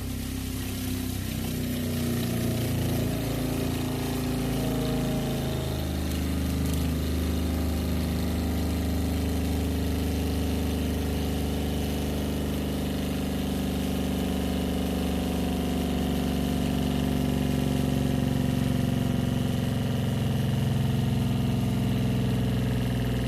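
12-volt ShurFlo diaphragm RV water pump running again on its repaired pressure-switch connector. The motor's steady hum is uneven for the first few seconds, then settles to an even pitch.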